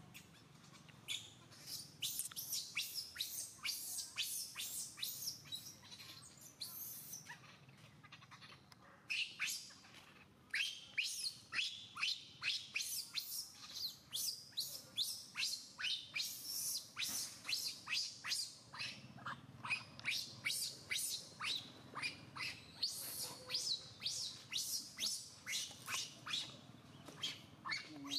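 Infant macaque screaming in distress: long runs of short, shrill shrieks at about two a second, with a brief lull near the middle.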